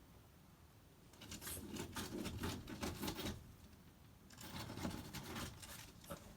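A dog in a reverse-sneezing fit: two bouts of rapid, repeated reverse sneezes, the first starting about a second in and lasting about two seconds, the second starting about four seconds in.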